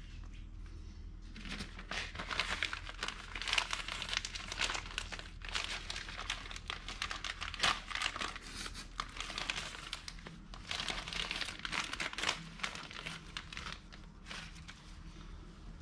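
Plastic parts bag crinkling and rustling in the hands as it is opened to get at a new replacement lawn mower air filter. It starts about a second and a half in, with a couple of short pauses.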